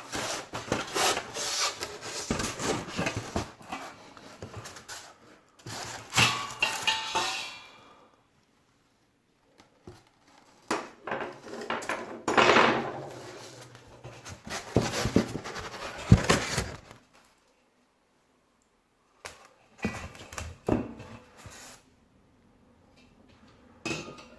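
Unboxing handling of a mash kettle and its parts: rustling packaging and metal pieces knocking and clinking, in several bursts separated by short pauses.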